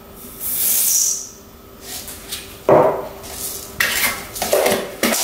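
Seeds poured from a cup into a stainless steel mixing bowl, a brief high rattling hiss, followed by several sharp clinks and knocks of containers against the bowl and tabletop.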